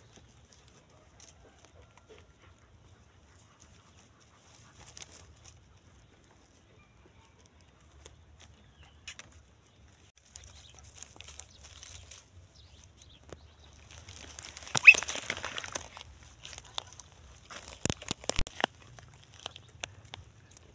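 Sparse rustling and crackling of dry twigs and grass as a dog noses about in them, with a louder rustle about two-thirds of the way in and a few sharp snapping clicks shortly after.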